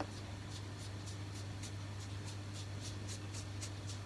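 Felt-tip pen dabbing light, quick marks on paper, a steady run of soft taps about four a second.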